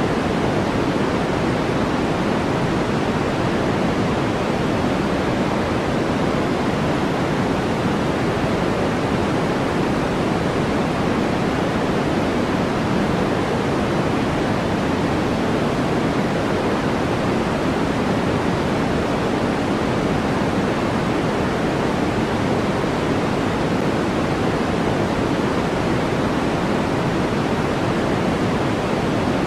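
Steady synthetic white noise for sleep, an even, unchanging rushing hiss that is fuller in the low-mid range than bright at the top.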